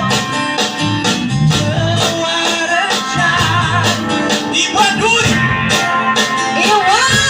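A live band playing, with guitar over a steady drum beat and a melody line that bends in pitch.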